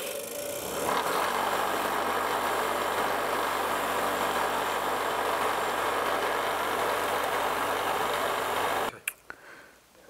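Bench grinder running with its wire wheel brushing the rust and brake dust off a drum-brake self-adjuster screw: a steady brushing noise over the motor's hum. It grows louder about a second in as the adjuster goes against the wheel, and cuts off suddenly about a second before the end.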